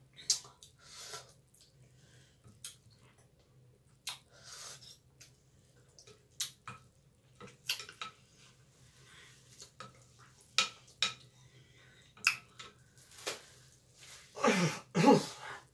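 Chopsticks and a plastic spoon clicking against a glass bowl of pho noodles, a sharp tap every second or two with soft slurping of noodles and broth in between. Near the end comes the loudest sound, a burst of the eater's voice lasting about a second.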